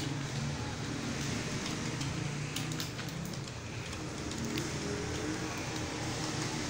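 Computer keyboard keys clicking faintly and irregularly as a student types a timed test, over a steady low hum of machinery or traffic.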